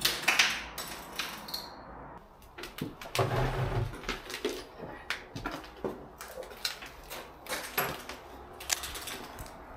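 Irregular footsteps scuffing and knocking on a floor strewn with plaster and wood debris, with scattered small clicks and a heavier low thump about three seconds in, in an empty room.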